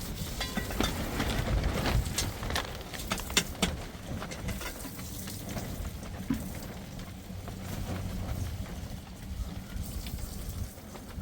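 Heavy rain falling with a steady hiss and scattered sharp taps of drops, most of them in the first four seconds, over a low rumble.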